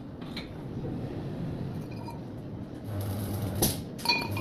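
Steel hand tools clinking against a square steel tube frame, with two sharp, ringing metal clinks near the end. A low hum comes in about three seconds in.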